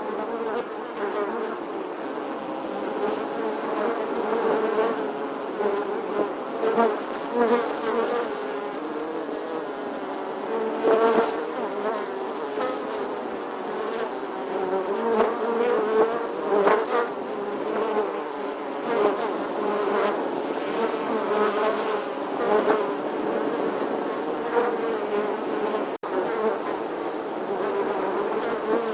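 A bee buzzing continuously: a steady drone whose pitch wavers slightly and whose loudness swells and fades now and then, with a split-second break near the end.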